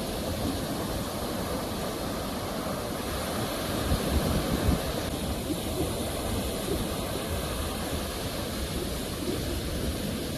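Ocean surf: a steady rush of waves, swelling a little louder about four seconds in.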